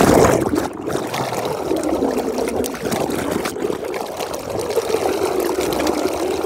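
Liquid pouring in a steady stream into a dung-lined pit, splashing onto the slurry at the bottom.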